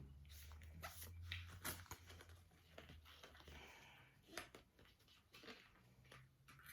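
Faint paper and cardboard rustling with a few small clicks as the instruction packet from a MacBook Pro box is opened and handled.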